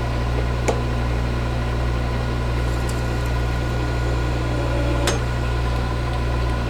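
Metal lathe running with a steady motor hum while boring a hole, with a couple of light clicks, about a second in and about five seconds in.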